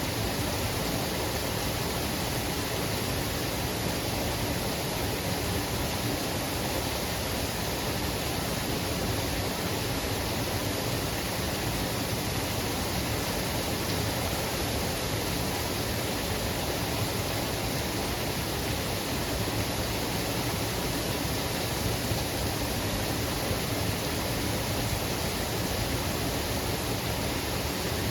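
Waterfall: a steady, even rush of falling water, unchanging throughout.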